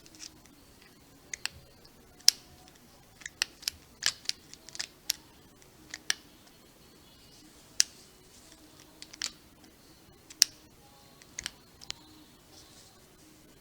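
About twenty sharp, irregularly spaced clicks and light taps of small hard parts being handled, over a quiet background.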